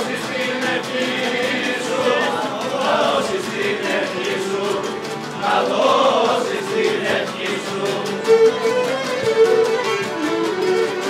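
Traditional Cretan folk music played live by a band of strummed laouta under a bowed Cretan lyra melody, with men's voices singing along in the middle.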